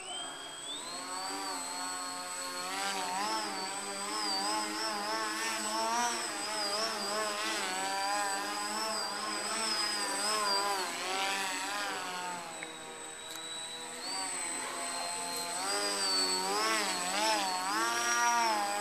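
Electric motor and propeller of a small EPP foam RC plane buzzing in flight, the pitch rising and falling continually as the throttle changes and the plane swoops past.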